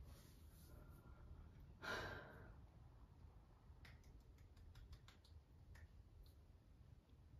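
A woman's audible sigh, one breath let out through the mouth about two seconds in, over near-silent room tone. A few faint clicks follow between about four and six seconds in.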